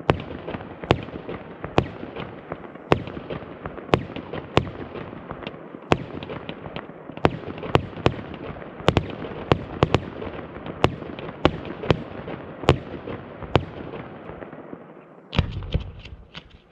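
Fireworks display: a continuous crackle of bursting shells with sharp bangs about once a second, then a quick volley of rapid bangs near the end before it dies away.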